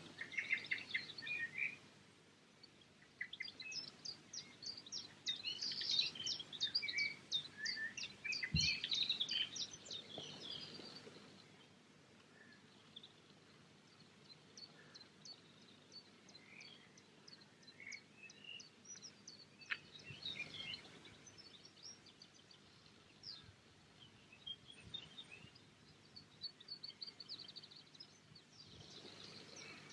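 Songbirds singing, quick chirps and trills coming in bursts with short lulls between them. A single soft thump about eight and a half seconds in.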